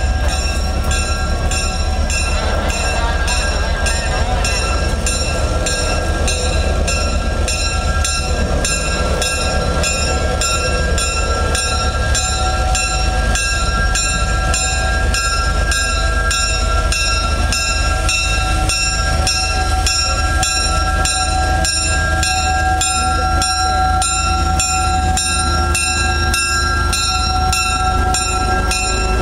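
Small switcher locomotive's engine running with a low, evenly pulsing rumble and a steady high whine as it pulls a caboose and an open passenger car slowly past.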